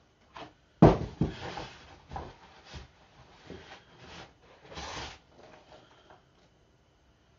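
Cardboard bottle dividers pulled out of a delivery box and handled: a sharp knock about a second in, then a run of scraping and rustling cardboard that stops about six seconds in.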